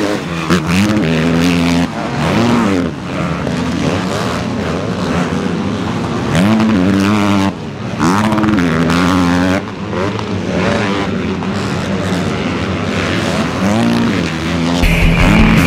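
Motocross bike engines revving hard and easing off again and again as the bikes race through jumps and up a hill. Rock music comes in near the end.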